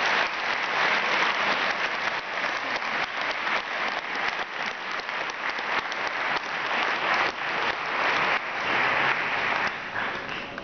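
Large audience applauding, a dense patter of many hands clapping that fades near the end.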